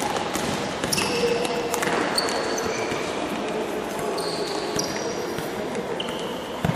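Futsal being played in a sports hall: players' shoes squeal briefly and repeatedly on the court floor while the ball is kicked, over a steady din of the hall. A sharp thud of a ball strike comes near the end.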